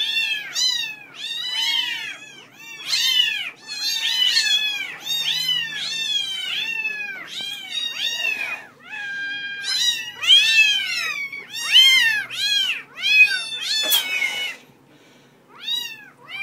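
A litter of kittens mewing over and over: short, high-pitched mews that rise and fall, several per second and often overlapping. The calls break off briefly near the end.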